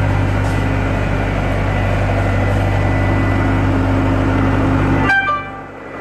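Skid steer engine running steadily at a constant speed. About five seconds in, the sound drops off abruptly to a much quieter engine sound.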